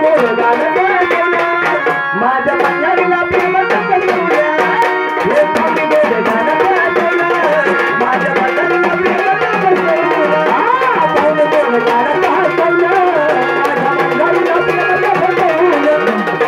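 Live music through a PA: a hand drum playing a fast, steady rhythm under a wavering melody line.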